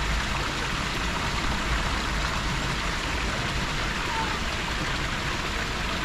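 Steady rush of running water with a low rumble underneath, and a faint short chirp about four seconds in.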